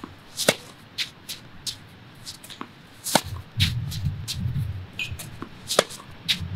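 Tennis balls struck with a racket in forehand drills and bouncing on the court: sharp pops every second or two, with lighter taps in between. A low rumble comes in during the second half.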